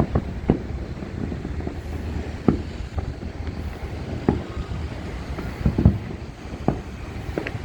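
Fireworks going off across a city, heard from far off: a string of separate sharp bangs, the loudest about six seconds in, over a continuous low rumble of many more distant explosions.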